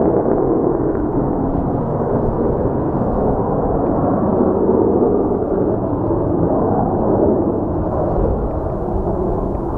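Boeing 727 jet engines rumbling at high power, a steady low roar with no clear whine, mixed with heavy wind buffeting on the microphone.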